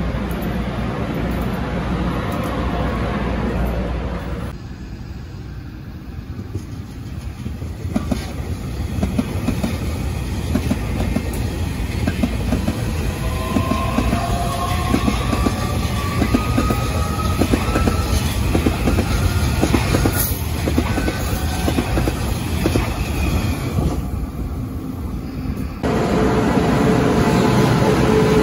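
An electric multiple-unit train accelerating past, its traction motors giving a steadily rising whine over the rumble and rhythmic clicks of its wheels on the rails.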